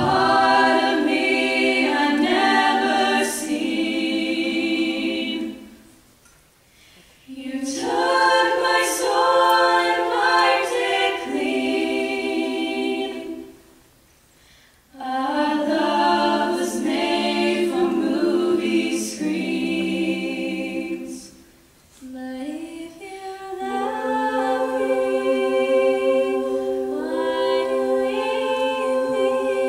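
Eight-voice female a cappella group singing in harmony, without instruments, in four phrases with brief pauses between them.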